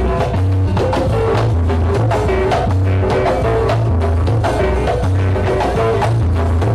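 Dance music played loud over a sonidero sound system, with a repeating bass line under a steady beat and melody.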